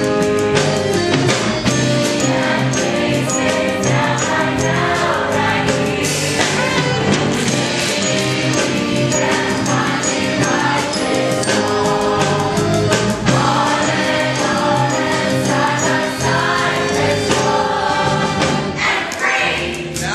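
A musical-theatre ensemble singing an upbeat number with band accompaniment, heard from the audience in a hall.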